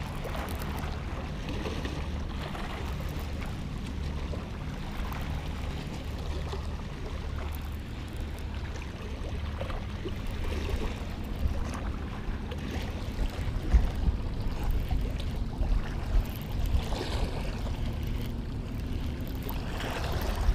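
Steady wind rumble on the microphone with small waves washing against the jetty's rocks.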